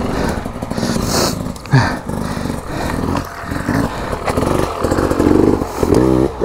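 Dirt bike engine running and revving up and down, its pitch rising and falling.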